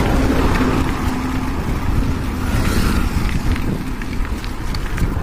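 Wind rumbling on the microphone of a bicycle moving along a highway, with the hiss of traffic on the road. A faint engine hum fades out in the first second or so.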